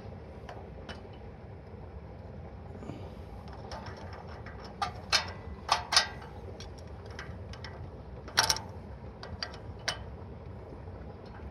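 Several sharp mechanical clicks and short clacks, a cluster of about four a little after five seconds in, then single ones near eight and ten seconds, over a steady low hum.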